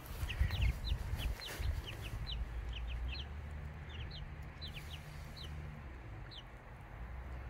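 Young chicks peeping: a quick run of short, high cheeps, several a second, that thin out and stop near the end. A low rumble runs underneath.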